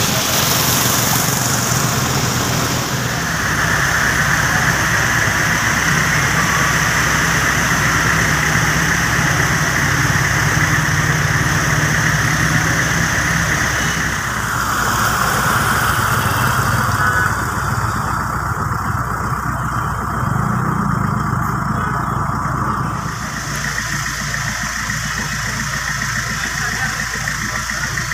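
Steady street noise of motor vehicle engines running, a low hum under a constant hiss. Its character changes abruptly a few seconds in, about halfway through, and again near the end.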